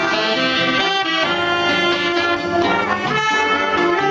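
A live dance band playing at a steady loudness, with a section of saxophones and other horns carrying chord and melody lines.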